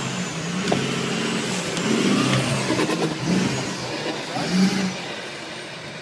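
Off-road truck engine revving hard in rising and falling bursts as it claws up a steep dirt bank, with a few sharp knocks in the first half.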